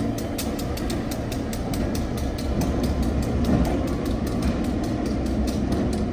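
Norfolk and Western 620, an EMD GP9 diesel locomotive, running with a steady low rumble as it pulls a passenger car slowly away along the track.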